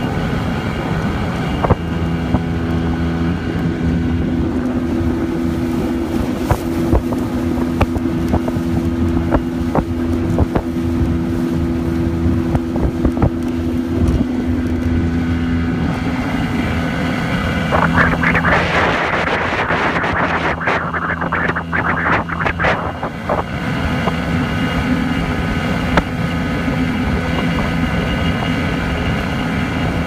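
Small motorboat's engine running steadily under way, a constant low hum, with wind on the microphone. A little past the middle comes a few seconds of louder rushing noise with crackles.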